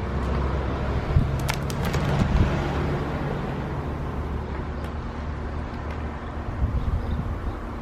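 A motor vehicle's engine hums steadily and low. There are a few short, light clicks about a second and a half in, and another near the middle.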